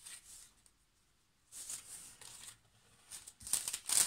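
Plastic packaging being handled: rustling and crinkling in short bouts, with a brief quiet pause about a second in, getting louder near the end.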